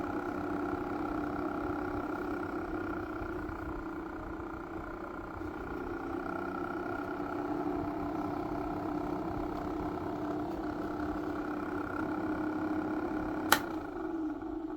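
Small battery-powered motor of a homemade mini fan running with a steady hum. A sharp click comes near the end, after which the hum begins to drop in pitch as the motor winds down.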